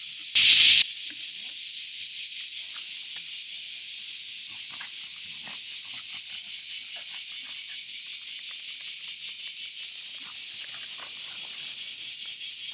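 Chorus of cicadas: a steady high-pitched buzzing hiss, with a brief loud burst of noise about half a second in.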